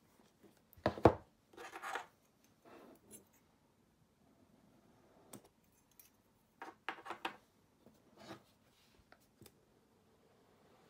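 A stiff cardboard product box handled and turned over in the hands, with a few brief knocks and scrapes as it is set on the table and picked up again; the loudest knock comes about a second in, with another group of knocks about seven seconds in.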